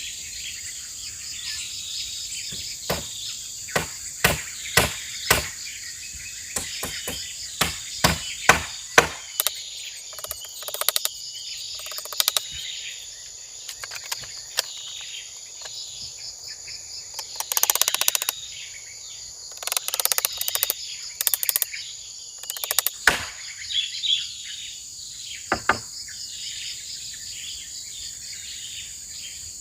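Steady high buzz of forest insects, with irregular sharp knocks over it and a few short rattling clatters near the middle.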